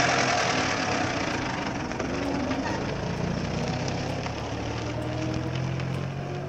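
Vehicle engine sound effect: an engine running with a rushing hiss and a low, steady hum, gradually fading.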